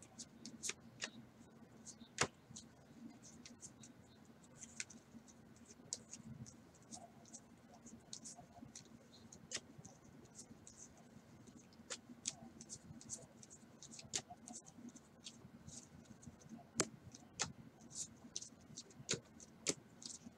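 Stack of baseball trading cards being flipped through by hand: a run of quick, irregular soft clicks as each card is slid off the stack, a few louder snaps among them, over a low steady hum.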